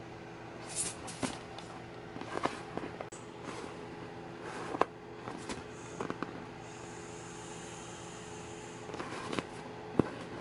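Inflatable vinyl beach ball being handled: crackles and taps of the plastic skin, then a steady high hiss for about two seconds as air escapes through its opened valve while the ball is pressed.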